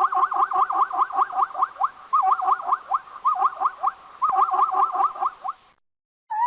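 Zebra barking: a fast run of high, yelping calls, about five a second, in several bouts. It breaks off suddenly near the end, and a new run of calls begins just after.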